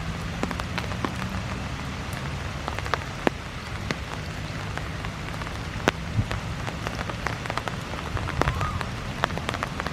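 Steady rain falling, with many individual drops ticking sharply at irregular moments over a continuous hiss, and a faint steady low hum underneath.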